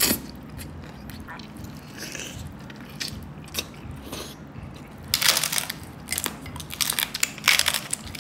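Close-miked eating of lechon (whole roast pig): soft chewing of pulled pork, then from about five seconds in, loud crunching bites into crispy lechon skin.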